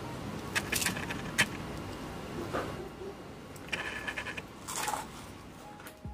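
Crisp deep-fried maida cookies (inji kothu paniyaram) being broken apart by hand: a scattered run of sharp crackles and snaps as the crust cracks, the sign of how crisp they have fried.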